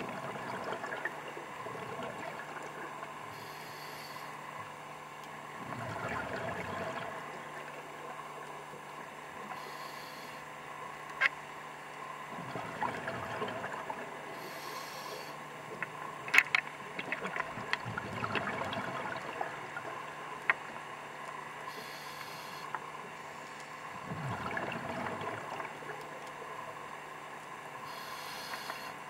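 A scuba diver breathing through a regulator underwater: a short hiss of inhalation, then a bubbly rumble of exhaled air, repeating about every six seconds. Scattered sharp clicks are heard between breaths.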